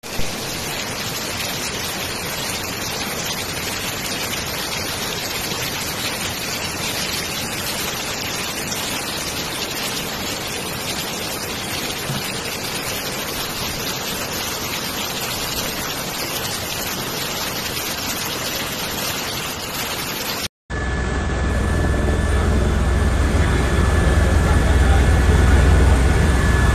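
Heavy rain and rushing floodwater as an even, steady hiss. About 20 s in this cuts abruptly to the inside of an aircraft cabin in flight: a strong low engine rumble with a steady high whine.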